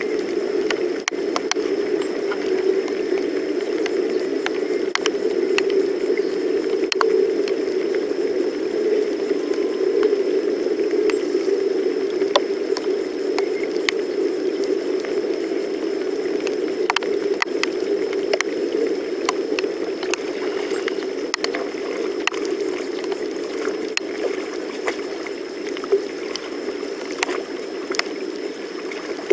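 Steady rush of rain and river water around a small fishing boat, with scattered sharp ticks of raindrops.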